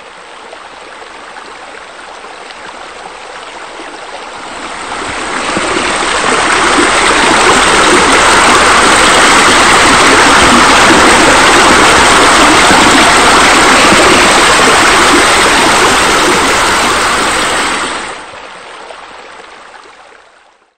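Steady running, splashing water like a pool's water features, swelling up over the first several seconds. It stays loud and even, then drops off sharply near the end and fades out.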